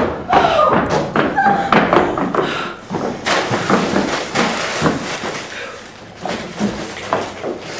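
Brown paper bag crinkling as it is handled, with items set down on a table in scattered knocks and thumps.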